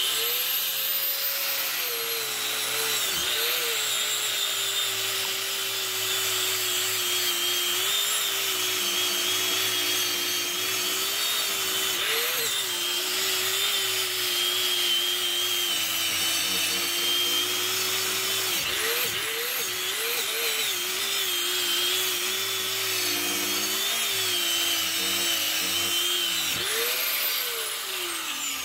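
Electric angle grinder with a wire cup brush running steadily, scouring dirt and rust off an old axe head. Its whine dips briefly several times as the brush bites into the metal, and the motor starts to wind down at the very end.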